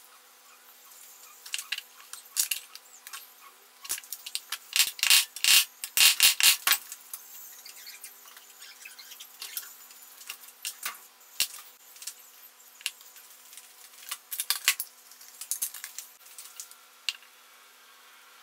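Small plastic and metal parts of a cordless drill's gearbox clicking and rattling as they are handled and fitted together by hand. The sharp clicks come in clusters, densest about four to seven seconds in and again around fourteen to fifteen seconds in.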